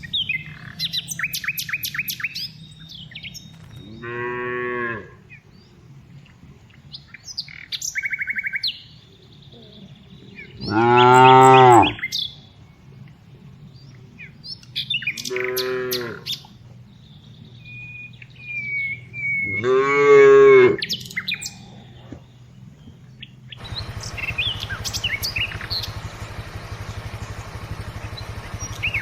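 Cows mooing, four separate moos a few seconds apart, each lasting about a second, with small birds chirping between them. A steady background hiss comes in near the end.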